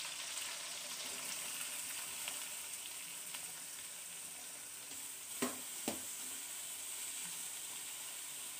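Oil sizzling steadily in an aluminium kadai as chopped onions are tipped onto frying green chillies and stirred in. There are two sharp knocks about five and a half seconds in.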